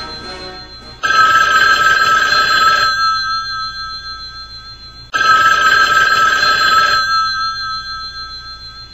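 Telephone bell ringing twice, each ring about two seconds long, the ring dying away slowly after each one.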